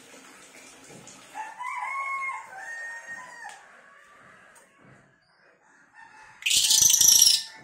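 A rooster crowing once, a drawn-out two-part crow starting about a second and a half in. Near the end comes a loud, short burst of rattling noise.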